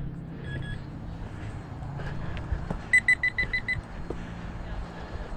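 Metal detector giving short, high electronic beeps: a brief double beep about half a second in, then a quick run of about six beeps around three seconds in.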